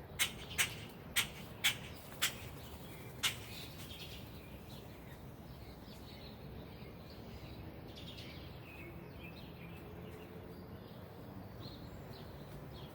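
Birds calling: a series of six short, sharp calls in the first three and a half seconds, then fainter chirps further off.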